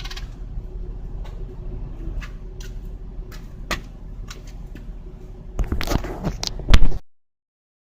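Engine bay of a Nissan Otti kei car: a low steady engine hum with scattered light ticks and clicks. About six seconds in come several louder knocks and a clatter, then the sound cuts off abruptly.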